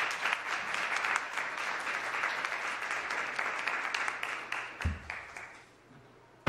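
Audience applauding, the clapping thinning out and dying away about five to six seconds in. A dull thump comes near the end, then a sharp knock right at the end.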